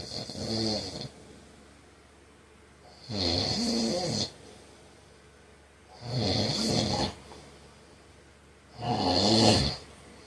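A man snoring in his sleep: four loud snores about three seconds apart, each lasting about a second, with quiet breathing between them.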